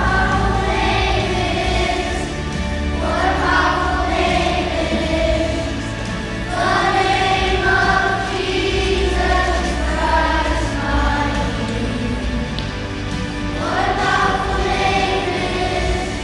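A choir singing with instrumental accompaniment, in sung phrases of a few seconds each over a steady low bass.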